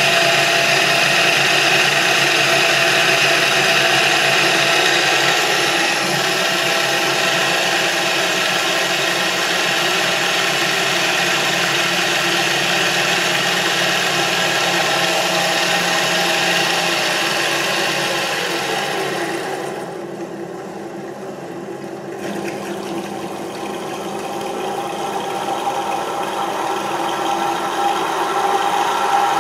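Ball-bearing motor running: the shaft and steel flywheel spinning on ball bearings that carry the current, giving a steady whirring rattle. The sound dips briefly about two-thirds of the way through, then comes back up.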